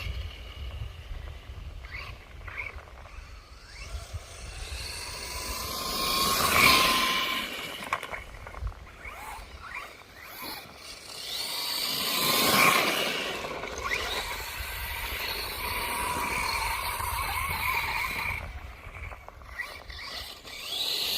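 FTX Outlaw RC truck making speed passes: its electric motor whine and tyre noise swell up as it comes close and fall away, twice, about six and twelve seconds in. Wind rumble on the microphone lies underneath.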